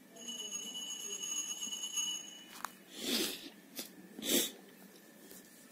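A faint, steady high-pitched whine for about two and a half seconds that ends with a click, then two short breaths about a second apart.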